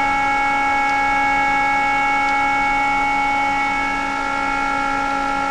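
Steady electronic hum and whine of running satellite test-bench equipment: several unchanging tones over a constant hiss.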